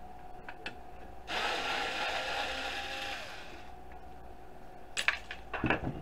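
Cordless drill/driver running for about two seconds as it backs a screw out of a plastic Roomba charging dock; its motor whir winds down with a falling tone as it stops. A few sharp knocks near the end.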